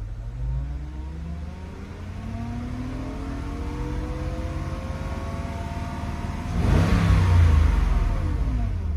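Porsche Cayenne Turbo 958's twin-turbo V8, heard from inside the cabin, climbing steadily in revs for several seconds, then dropping in pitch with a louder surge about seven seconds in. Under the engine note is a turbine-like whine that the owner suspects may be a pulley, a bearing or the timing chain.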